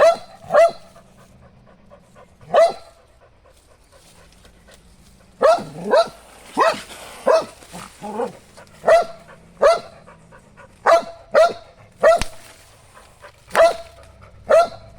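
A dog barking: a few spaced barks at first, then a steady run of barks about every half second from about five seconds in.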